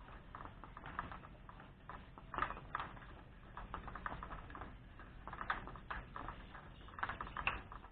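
Light, irregular clicks and scrapes of metal as a threaded joint on a hand pump's iron riser pipe is turned by hand.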